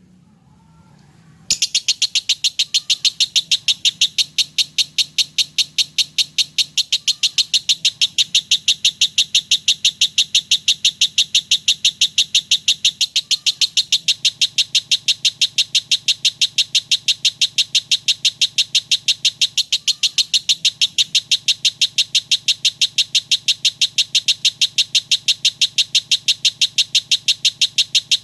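Lovebird singing a long unbroken chattering trill, a rapid, even run of shrill notes that starts about a second and a half in and keeps going without a break.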